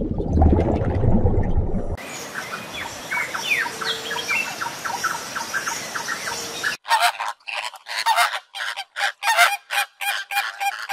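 Birds calling: a run of short, rapid chirping calls over a noisy background, then loud, harsh, honking calls repeated two or three times a second in the last four seconds.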